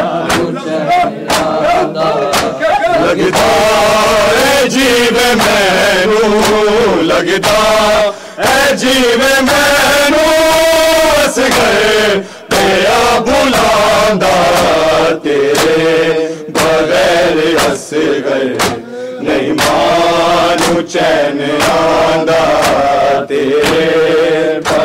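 Men chanting a Punjabi noha lament, a lead voice with others joining, over a steady beat of sharp hand strikes from chest-beating (matam).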